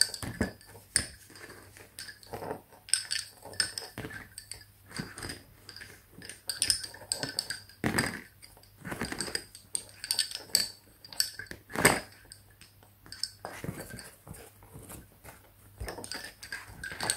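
Lace bobbins clicking against each other in irregular clusters as pairs are crossed and twisted to work cloth stitch in bobbin lace.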